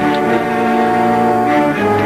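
Orchestral film score with brass, playing held chords that change a couple of times.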